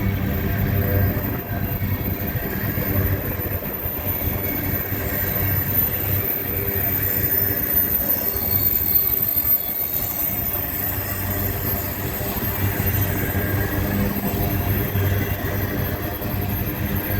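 Empty freight train rolling steadily past, its cars' steel wheels running over the rails.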